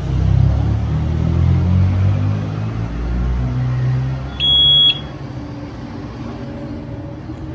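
Low rumble for the first five seconds, with one short high-pitched electronic beep about four and a half seconds in, then a quieter steady hum.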